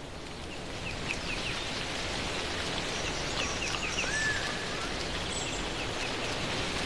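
Mountain forest ambience: a steady hiss like light rain or wind in the trees, with short series of high bird chirps about a second in and again near the middle, and one brief rising-and-falling whistle.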